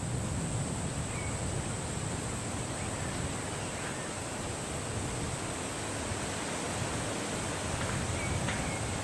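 Steady wind blowing, with a few faint short bird chirps about a second in, around four seconds and near the end, over a steady high-pitched hiss.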